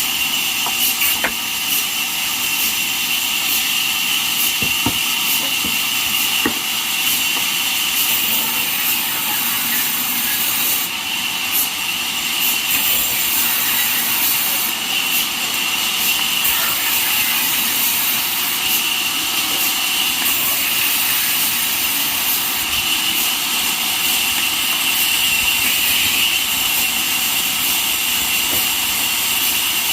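Band sawmill cutting jackfruit wood: the blade and drive run steadily through the log with an even, high-pitched whine over a constant hiss.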